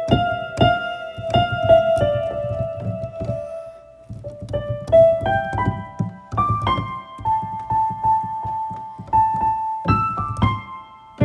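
Solo piano music: a melody of held notes over steadily repeated low notes.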